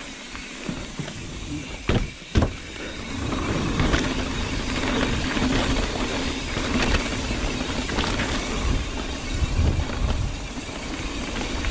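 Mountain bike riding a dirt trail, picked up on a chest-mounted camera: two sharp knocks about two seconds in, then a steady rumble of tyres and rattle of the bike, with wind noise.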